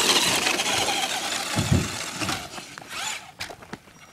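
Radio-controlled car running hard across dirt and grass, its motor and tyres loud for the first couple of seconds and then fading as it pulls away.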